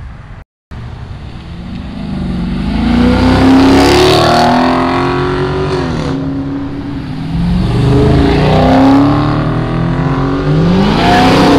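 Cars accelerating hard past the camera as they leave a car meet, engines revving up through the gears. After a brief dropout near the start, the engine note builds and climbs, drops about six seconds in, then climbs again as another car pulls away.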